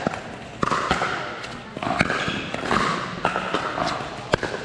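Pickleball paddle striking the ball during a rally: several sharp pops spaced a second or two apart.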